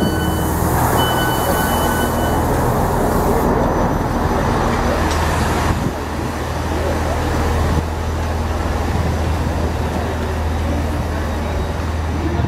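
Railway station platform ambience: a steady low rumble of trains standing and running at the platforms. A high beeping tone sounds briefly about a second in.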